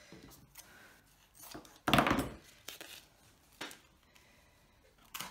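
A strip of black adhesive tape is pulled off its roll with one short, loud ripping sound about two seconds in, amid softer rustles and taps of card and tape being handled.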